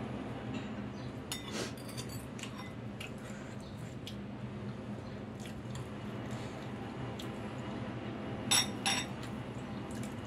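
Metal fork and spoon clinking and scraping against a ceramic soup bowl, with two sharp clinks close together near the end. A steady low hum runs underneath.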